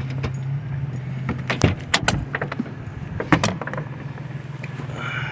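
Pickup truck engine idling, with a cluster of sharp knocks and clicks about one and a half to three and a half seconds in.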